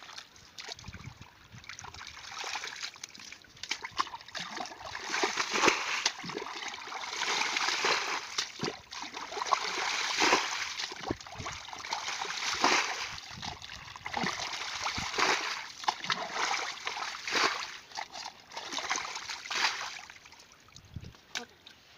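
Muddy water being bailed out of a mud pit with a metal bowl: repeated splashing and sloshing in uneven throws a second or two apart, dying away near the end.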